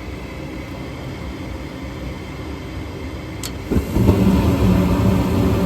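Gas furnace inducer motor running steadily, then a sharp click about three and a half seconds in and at once a sudden, louder low rumble: the gas valve opening and the burners lighting off the hot surface igniter.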